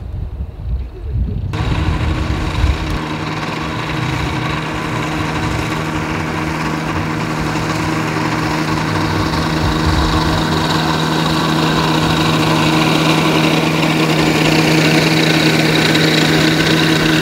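Wind on the microphone for about the first second and a half. Then the Rotax 447 two-stroke twin engine of a MiniMax 1600R ultralight runs steadily at low taxi power, propeller turning, growing slowly louder as the plane comes closer.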